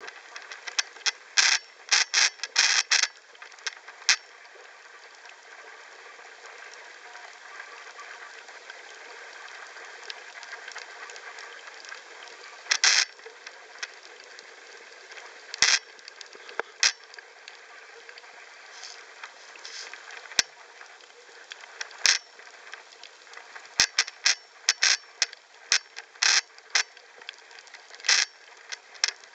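Underwater sound picked up by a submerged camera: a steady hiss with sharp clicks, bunched in quick runs in the first few seconds and again near the end, with a few single ones between.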